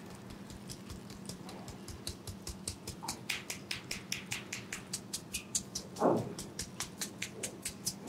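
Fingertips working the back of the neck in a pressure-point head massage: a run of quick, light clicks and taps on skin, sparse at first and then about four a second from about three seconds in, with one short, lower sound about six seconds in.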